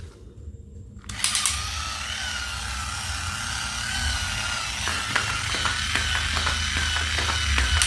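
A battery-powered toy's small electric motor and plastic gears whirring with a wavering whine, starting about a second in. From about halfway, quick ratcheting clicks join it.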